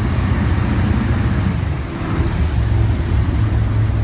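Small pilot boat's engines running steadily under way, a low drone, mixed with rushing wind and waves breaking around the hull.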